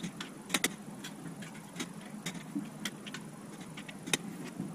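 Sharp metallic clicks from a long-handled ratchet wrench being worked back and forth on the cap bolts of a 350 V8 short block. The clicks come irregularly, sometimes two in quick succession, over a steady low hum.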